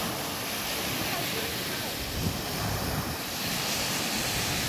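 Small waves breaking and washing up a coarse sand and shingle beach in a steady rush of surf, with wind rumbling on the microphone.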